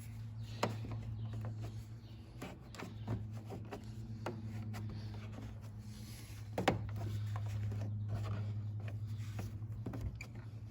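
Protective vinyl film being smoothed onto a car headlight lens by hand: soft rubbing and scattered light clicks as creases and air are worked out, with one sharper click about two-thirds of the way through. A steady low hum runs underneath.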